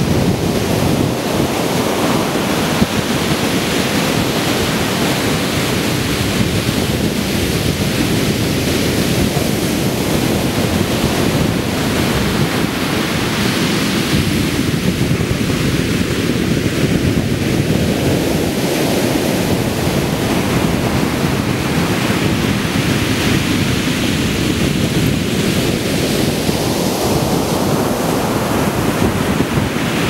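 Black Sea surf breaking on a sandy beach: a continuous rush of rough winter waves that swells and eases every several seconds as each breaker crashes and its foam washes up the sand.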